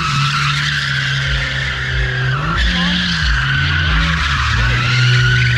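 Car doing donuts, its tyres squealing without a break while the engine is held at high revs. The engine pitch dips and rises a few times as the throttle changes.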